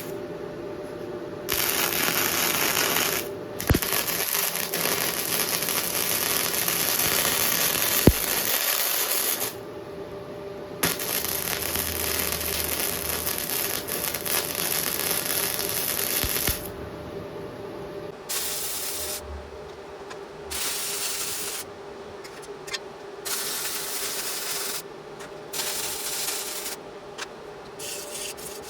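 Flux-cored (gasless) arc welding with a SUZUKID Buddy140 semi-automatic welder: the arc crackles and sizzles in three long runs of several seconds each, then in several short bursts of about a second, as for tack welds. A faint steady hum runs underneath.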